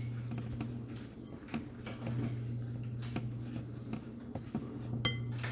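Silicone spatula stirring a thick, wet spice paste in a glass bowl, with faint irregular scrapes against the glass and a brief squeak near the end, over a steady low hum.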